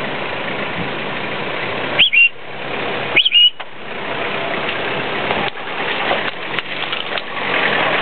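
Toyota 4x4's engine running at low speed as it crawls over the rocks of a riverbed, under a steady noisy wash. Two short high chirps, each rising then holding, cut in about two and three seconds in, and scattered knocks follow in the second half.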